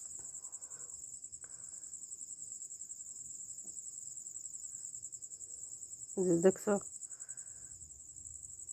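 Crickets trilling steadily at a high pitch, a fast even pulsing that never stops.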